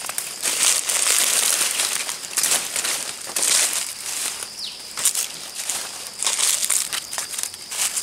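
Footsteps crunching and crackling through dry leaf litter on the forest floor, in an uneven walking rhythm, with a faint steady high tone underneath.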